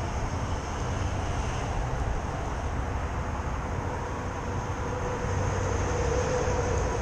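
Cruiser motorcycle engine idling: a steady low rumble, with a faint steady tone growing a little louder about five seconds in.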